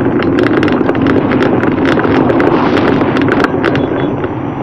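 Wind rushing over the microphone of a camera on a moving bicycle, with many irregular sharp clicks and rattles.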